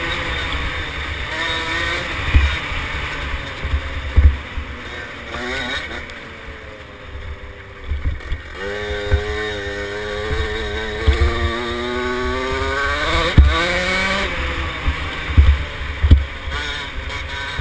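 Small two-stroke engine of a KTM 50SX mini dirt bike being ridden, revving up and down as the throttle opens and closes, with one long climb in pitch from about halfway through that drops off sharply, and several low thumps along the way.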